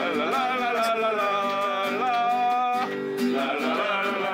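Acoustic guitar strummed, with a voice singing long held, wavering notes over it.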